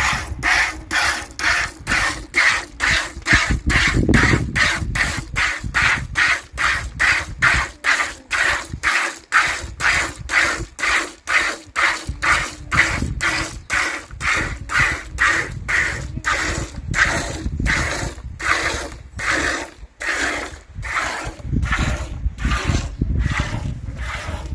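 Footsteps in an even walking rhythm, about two a second, over a low, uneven rumble.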